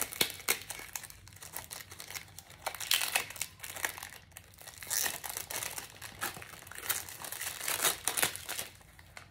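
Plastic packaging crinkling and rustling as it is handled and pulled open by hand, in a run of irregular crackles with louder bursts around three, five and eight seconds in.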